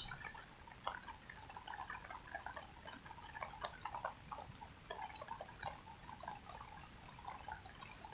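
Rainwater dripping: many faint, irregular drops falling one after another, with no steady downpour.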